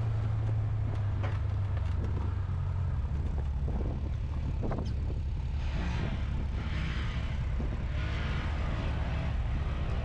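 Side-by-side UTV engine running steadily, a low drone with a few faint clicks and knocks over it.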